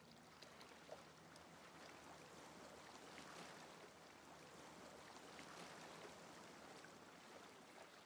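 Faint, steady rush of water lapping alongside a moving boat, with small scattered splashes, beginning to fade near the end.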